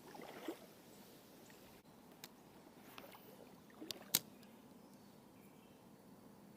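Faint steady outdoor background hiss with a few short sharp clicks or taps, the sharpest pair about four seconds in.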